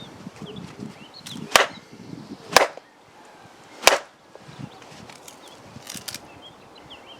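A wooden baton striking a sawn log section to split it along the saw cut: three sharp wooden whacks about a second apart, then a few lighter knocks near the end.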